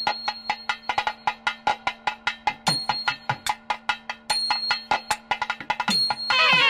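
Instrumental music: a fast run of percussion strokes, several a second, over a steady low drone note.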